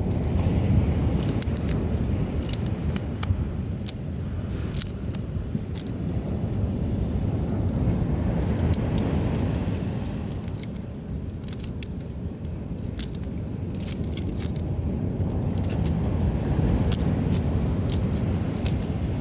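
Campfire of dry reeds and wood crackling, with irregular sharp pops, over the low rumble of rough surf breaking on the beach that swells and eases every several seconds.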